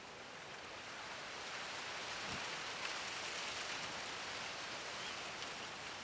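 Soft, steady outdoor hiss, swelling a little about a second in, with a few faint ticks.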